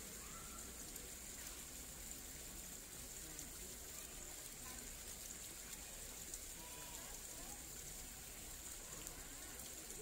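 Running water of a shallow, rocky stream fed by a waterfall, a faint steady rush and trickle.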